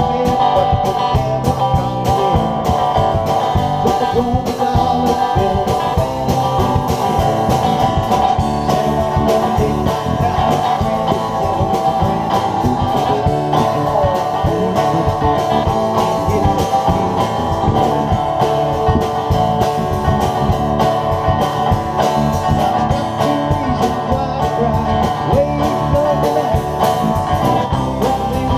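Live band jam: an acoustic guitar being played along with a drum kit, one continuous piece of music.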